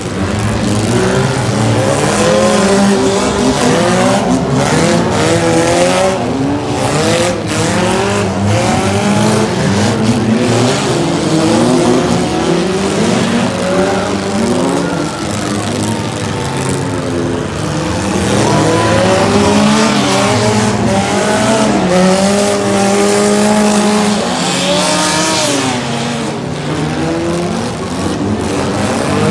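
Several demolition derby car engines revving up and down at once, their pitches overlapping, with a few sharp bangs between about four and eight seconds in.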